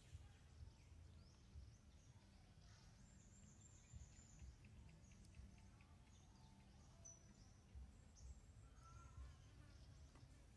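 Near silence: faint outdoor background with a low rumble and a few faint high chirps and short calls scattered through.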